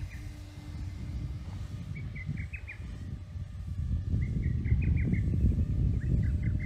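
Wind rumbling on the microphone while a small bird calls in three quick series of short chirps. Early on, the steady whine of the electric RC plane's motor and propeller fades away as the plane climbs off.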